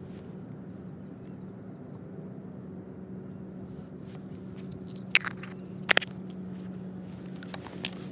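A few sharp crunches of granular surface ice, the loudest about six seconds in, over a steady low hum.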